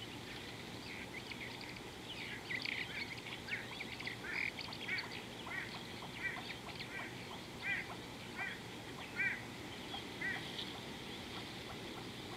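A bird calling a series of short, evenly spaced notes, about one every three-quarters of a second. The calls start about two seconds in and stop near the end, over steady outdoor background noise.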